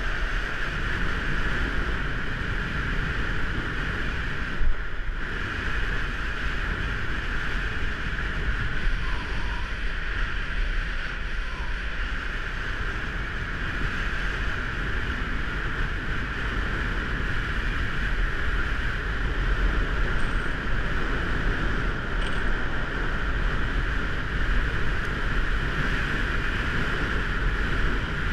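Downhill longboard at speed on asphalt: a steady rush of wind over the action-camera microphone mixed with the roar of urethane wheels rolling on the road, with a single knock about five seconds in and the rush growing a little louder in the second half.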